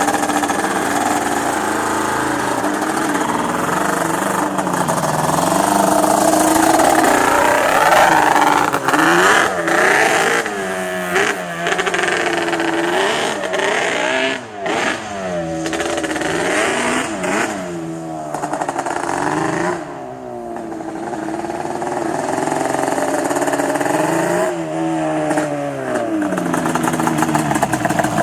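Yamaha Banshee 350's twin-cylinder two-stroke engine running and revved again and again, its pitch rising and falling in quick blips through the middle and again near the end. The engine is still cold, with a blubbering note.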